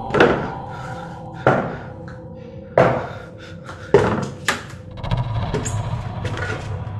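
Wooden wardrobe doors knocking five times, sharp thunks about a second apart, as they are handled and pulled open, over a steady eerie music drone.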